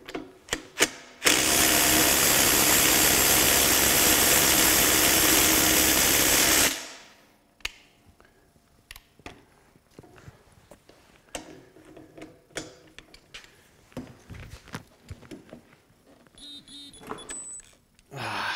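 Ridgid 18-volt sub-compact 3/8-inch impact wrench hammering on a bolt through a deep-well socket for about five seconds, stopping abruptly. Light clicks and knocks of tools being handled follow, with a short high beep near the end.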